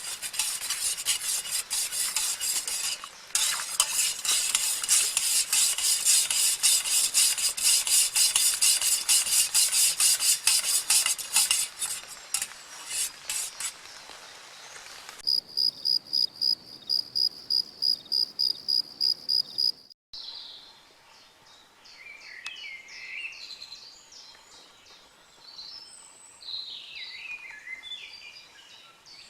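Heavy rain pattering steadily, a dense patter that stops abruptly about halfway through. Then a regular high-pitched beeping, three or four beeps a second, for about five seconds. After a brief gap, scattered bird chirps, the birds singing before dawn.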